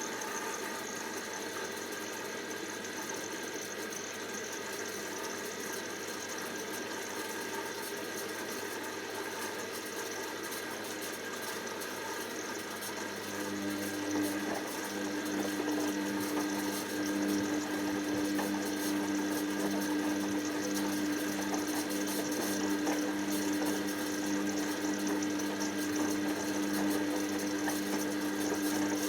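Hoover DYN7144XD1 washing machine running with a steady whirr. About halfway through, a steady hum joins in and the sound gets a little louder.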